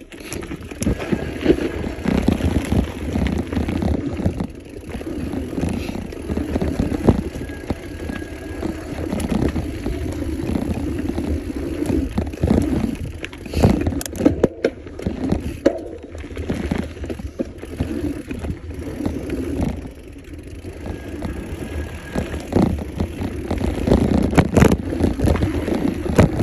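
Mountain bike descending a dirt trail at speed: knobby tyres rolling over packed dirt and the bike rattling with sharp knocks over bumps, with wind rushing over the handlebar-mounted microphone.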